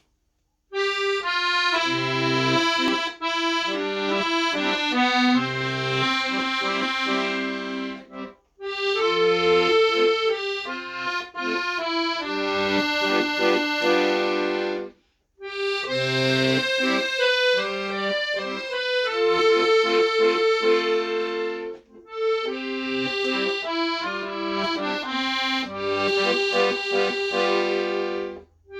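Accordion playing a slow melody over held chords and low bass notes. It plays in four phrases, each broken off by a brief pause.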